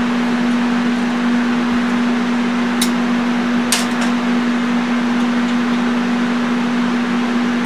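AC TIG welding arc from a Lincoln Square Wave TIG 200, buzzing steadily with an even hiss. A few short sharp ticks come about three to four seconds in.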